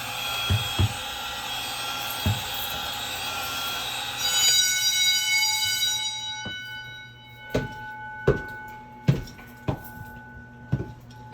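Fire alarm horns of an Edwards 6500 system sounding in alarm, a loud buzzing blare that cuts off suddenly about four and a half seconds in as the panel resets. Fainter steady tones linger afterwards, with a few sharp knocks in the second half.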